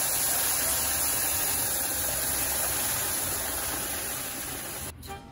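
Hot water poured into a pot of rice browned in olive oil with onion and garlic, hissing and sizzling steadily as it hits the hot pan. The hiss stops shortly before the end.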